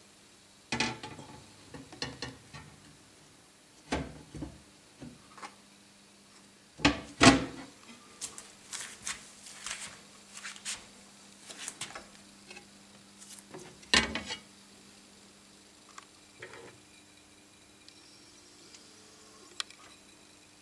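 Handling noise: a scatter of knocks, clicks and rubbing scrapes, with a sharp knock about seven seconds in and another about fourteen seconds in, over a faint steady hum.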